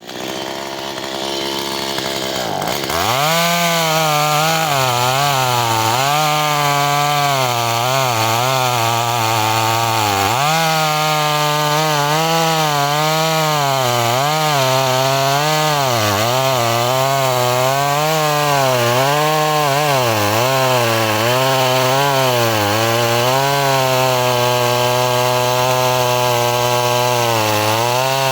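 Chainsaw cutting pine, running at lower speed for the first couple of seconds, then opening up to full revs. Under load its pitch wavers up and down about once a second, with a short dip about ten seconds in.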